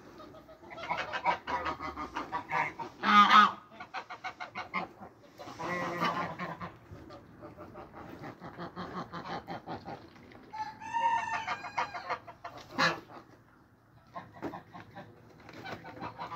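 White domestic geese calling: runs of rapid cackling with loud honks about three and six seconds in, and a longer wavering call about eleven seconds in.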